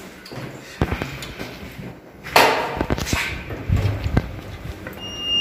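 Scattered knocks, clicks and rustling from a handheld camera being moved about, with a loud rushing burst about two seconds in and a few dull thumps near the end.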